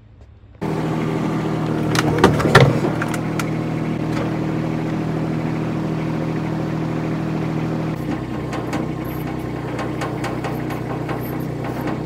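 Small engine of a Baumalight TRL620D mini skid steer running steadily while the machine sits in its wooden shipping crate. A few sharp knocks come about two to three seconds in.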